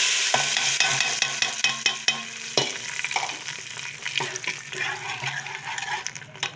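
Hot tadka of fried onion, garlic and dried red chillies sizzling as it hits a pot of cooked dal, the hiss fading away while a steel ladle stirs it in, clicking against the pot.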